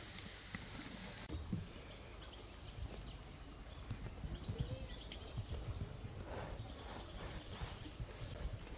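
A knife sawing through the crust of a round loaf of bread on a wooden cutting board, with irregular small crunches and knocks.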